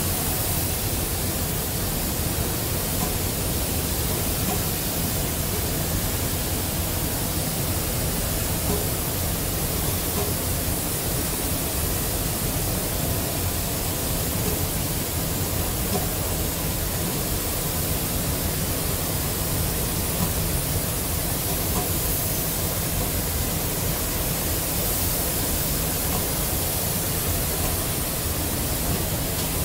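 Steady hiss of a robotic paint-spray booth as its spray guns coat tractor chassis, with a steady low rumble underneath.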